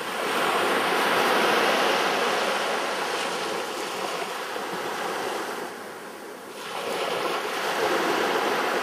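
Small sea waves breaking and washing up a beach: a continuous rush of surf that swells and eases, dropping away about six seconds in before building again.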